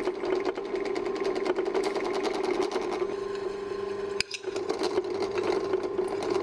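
Drill press running, its bit cutting into a small metal part: a steady motor hum with rapid scraping ticks from the cut. A sharp click about four seconds in, with a brief dip in the sound.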